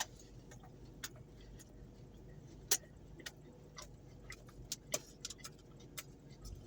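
Faint, irregular clicks and taps of someone starting to eat a takeout meal: utensil, container and mouth sounds, about a dozen scattered ticks.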